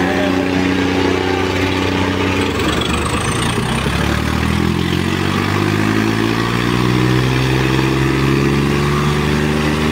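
Tractor diesel engines running hard under full load in a tug-of-war pull; after a brief unsteady patch, the engine note climbs slowly in pitch through the second half.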